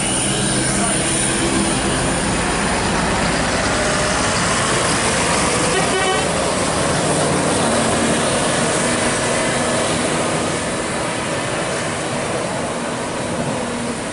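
Large intercity bus's diesel engine running close by, loud and steady, easing off slightly after about ten seconds, with a brief sharper sound about six seconds in.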